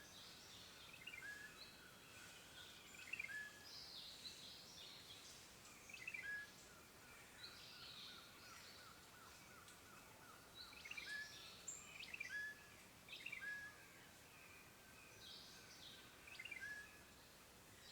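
Faint forest ambience of several birds calling: short chirps repeated at irregular intervals, over a steady soft hiss.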